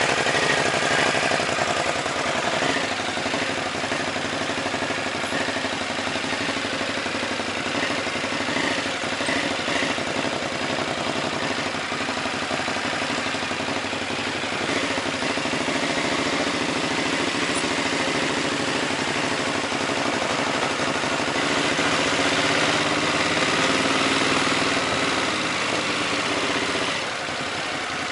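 Ducati Hypermotard 939's L-twin engine, fitted with an Akrapovic exhaust, running steadily, its pitch shifting gently up and down in the later part.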